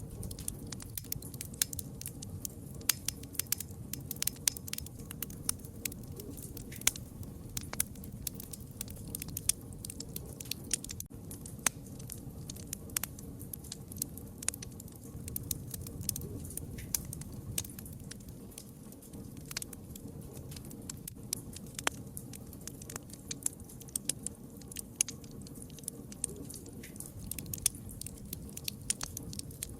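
Wood fire burning with a steady low rush of flame and frequent irregular crackles and sharp pops.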